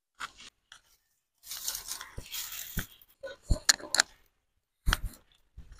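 A clay wood-fired stove being lit and fed: dry kindling rustling and crunching, then a few sharp knocks and a dull thump.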